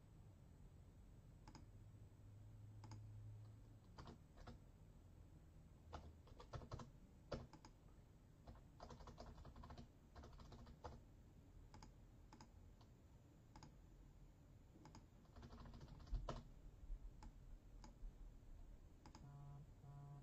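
Faint computer keyboard typing: irregular short runs of keystrokes with pauses between them.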